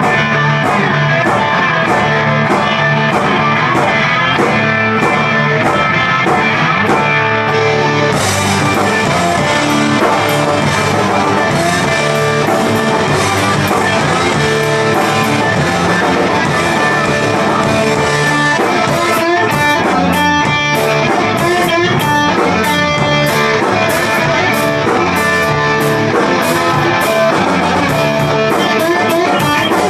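Live rock band playing: electric guitar, bass guitar and a Premier drum kit. Steady hi-hat ticks keep time at first, then about eight seconds in the cymbals open up and the sound fills out.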